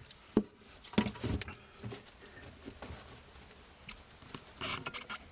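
Scattered light clicks and knocks of a screwdriver working the clamp on a dishwasher drain hose inside the under-sink cabinet, a few about a second in and a quick cluster near the end.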